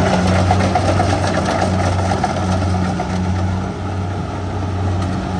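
Rice combine harvester running as it cuts and threshes rice: a steady, loud, low engine hum with machinery noise on top.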